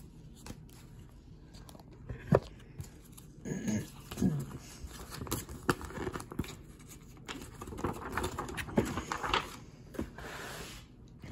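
Paper rustling and crinkling as a folded paper letter and map are pulled from a book's envelope pocket and unfolded, with scattered light clicks and rustles throughout.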